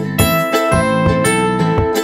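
Background music: sharply struck, ringing notes in a steady rhythm.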